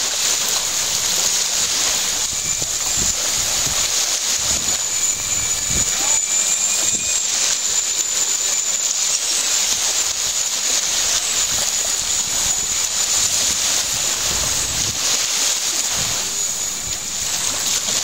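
Electric motor of a toy radio-controlled speedboat running with a steady high-pitched whine, over wind on the microphone and small waves washing in the shallows.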